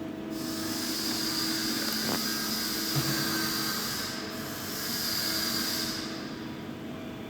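Welding on a refrigerator: a steady high hiss that starts just after the beginning, drops out briefly about four seconds in, then resumes and stops at about six seconds. A short knock about three seconds in.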